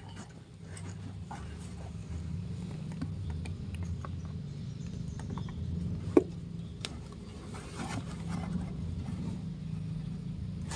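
Small clicks and taps from handling motorcycle engine parts, with one sharper metallic knock about six seconds in, over a steady low hum.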